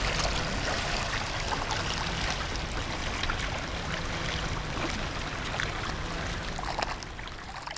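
Kayak paddles dipping into flat river water: a steady wash of trickling, lapping water with many small splashes, fading out at the very end.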